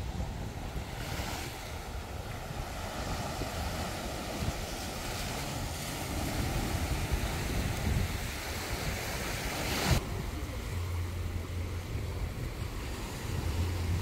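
Small waves breaking and washing up a sandy shore, with wind buffeting the microphone as a low rumble. A sharp click about ten seconds in.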